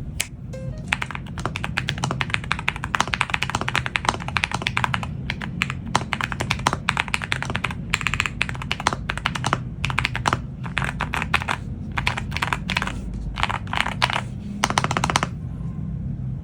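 Fast typing on a WOB Rainy75 mechanical keyboard fitted with Akko Rosewood switches: dense runs of key clacks with brief pauses, stopping about a second before the end.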